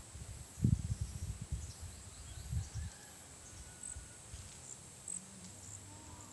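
Rural outdoor ambience: irregular low rumbling on the microphone, loudest about a second in, with faint, short, high-pitched chirps of insects.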